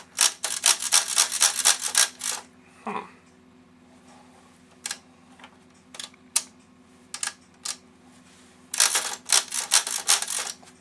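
Vintage Commodore portable manual typewriter being typed on: a quick run of key strikes at the start, a few single strikes in the middle, and another quick run near the end.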